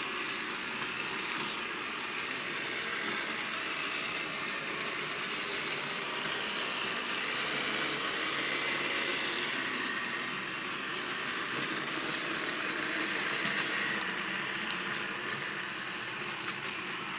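Motorised 00-scale model tram with a pmt drive unit running along its track: a steady whir from the small electric motor and gearing, mixed with wheel-on-rail noise and swelling slightly twice.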